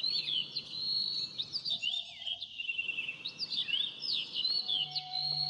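Several songbirds singing at once, a dense chorus of quick, high, slurred whistles and chirps.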